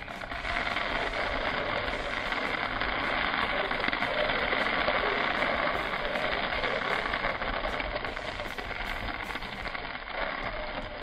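Sand and small gravel poured from a plastic scoop, streaming steadily into the plastic funnel of a sand-and-water-wheel toy: a continuous hiss of grains falling on plastic.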